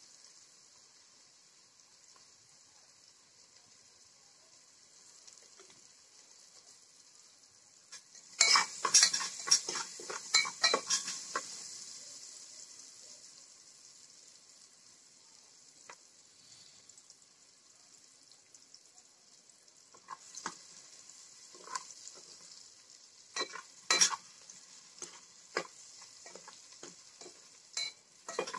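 A metal spoon clinks and taps against a jar and an aluminium pot. A dense burst of clattering comes about eight seconds in, then scattered taps through the second half as the pot is stirred. Under it runs a steady high hiss from the pot cooking on a small gas-cylinder burner.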